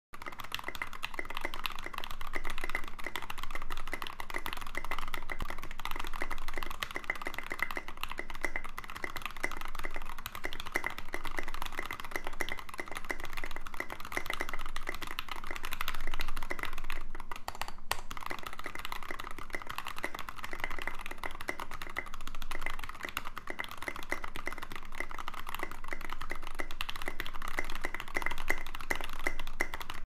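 Fast, continuous typing on an Ikki68 Mizu custom mechanical keyboard with OA switches, an FR4 plate and SA-profile keycaps: a dense stream of keystroke clacks, broken by one brief pause about seventeen seconds in.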